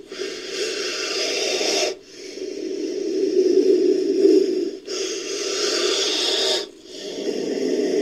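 Made-up creature call for the snake-like amphibian Ophiderpeton, built from a Titanoboa sound effect: a run of drawn-out, breathy hissing exhalations, about four in a row, each around two seconds long with brief breaks between them.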